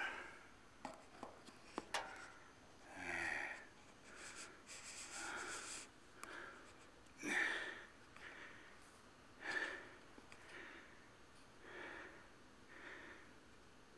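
A person breathing close to the microphone, each breath a soft rush that comes about every second or so. A few sharp clicks in the first two seconds are the camera being handled and set down.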